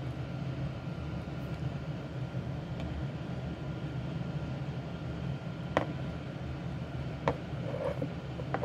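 Steady low background hum, with two sharp clicks about a second and a half apart in the second half.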